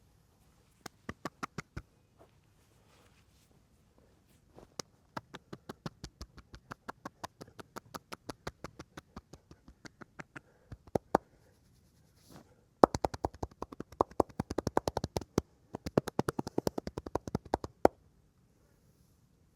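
Hands striking the body in a fast percussive massage, in rhythmic runs of slaps. There is a short run near the start, then a steady run at about five strikes a second, then a faster, louder run at about eight or nine a second, broken once by a short pause.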